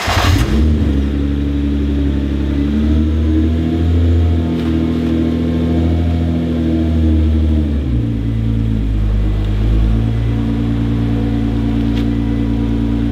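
Nissan R35 GT-R's twin-turbo V6 idling just after start-up, at a raised idle that drops to a lower, steady idle about eight seconds in.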